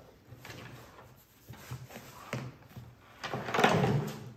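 Handling noise from a nylon backpack being laid down and opened and a hydration bladder pulled out: fabric and plastic rustling in short bursts, with a longer, louder rustle near the end.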